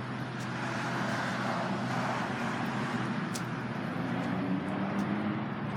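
Road traffic: a motor vehicle going by, its noise swelling and easing in the first few seconds over a steady low hum.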